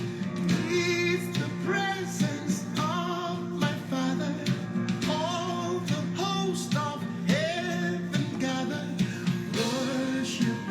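Music: a song with a lead singing voice over guitar and a steady low backing, with a beat.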